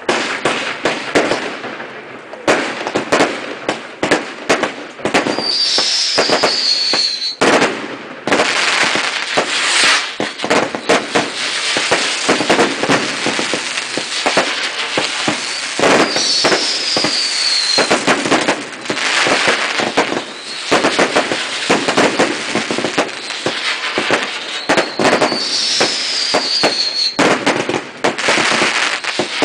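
Fireworks final barrage: a dense, continuous run of bangs and crackling shots. A whistle falls in pitch three times.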